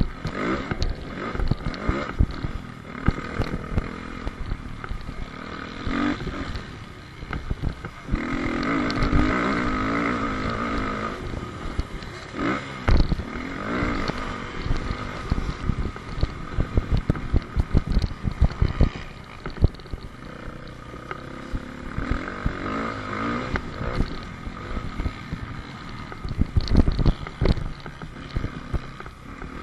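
Dirt bike engine revving up and down between gear changes as it races over a motocross track, heard from a helmet-mounted camera, with frequent knocks and jolts from the bumps.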